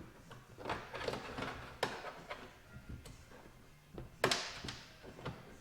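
Scattered clicks and knocks of hands working inside a minivan's sliding door while connecting the door-handle cable, with the loudest knock a little past four seconds in.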